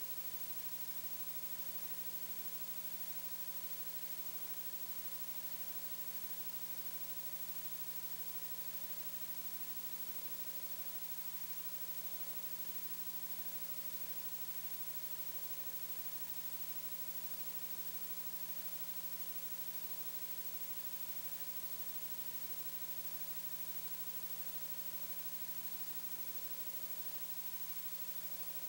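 Steady hiss with a low electrical hum of several unchanging tones, the line noise of a video feed with no programme sound on it.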